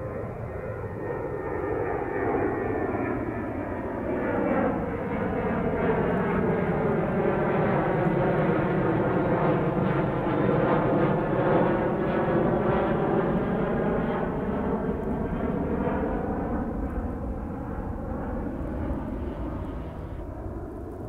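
Boeing 737 airliner's twin jet engines at climb power as it passes overhead after takeoff: a steady jet roar that swells to its loudest about halfway through and then slowly fades. A sweeping, phasing hiss runs through the roar, its pitch bands dipping and then rising again as the plane goes over.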